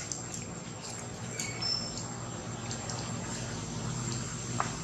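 Steady outdoor background of low hum and hiss with a thin high tone, broken by a few faint clicks and one brief high chirp about a second and a half in.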